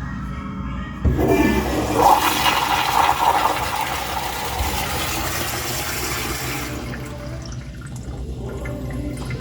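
Toilet in a public men's restroom flushing: a sudden loud rush of water starts about a second in, runs for about six seconds, then dies down to a quieter run of water near the end.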